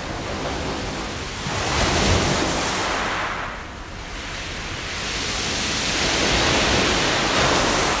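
Waves breaking and washing over a beach of round, smooth pebbles (mongdol), the pebbles rattling in the surf. The wash swells twice: briefly about two seconds in, then longer and louder through the second half.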